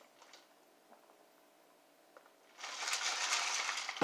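A plastic tumbler of iced apple juice being drunk from through a straw and handled: a noisy rattling burst of about a second and a half starts about two and a half seconds in and ends with a sharp click.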